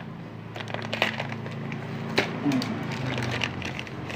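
Clear plastic bag crinkling and crackling as it is handled, with scattered clicks, over a steady low hum.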